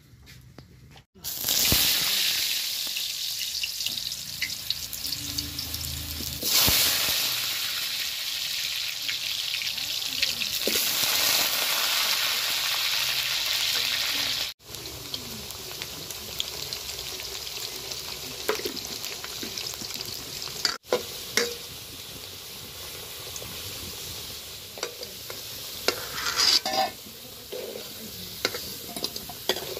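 Potato chunks frying in hot oil in an iron kadai, a loud steady sizzle that starts suddenly about a second in. Later the sizzle is quieter, with a steel ladle scraping and clinking against the pan as the potatoes are stirred, most of it near the end.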